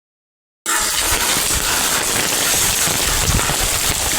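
Heavy rain falling, a steady dense hiss that starts abruptly just over half a second in.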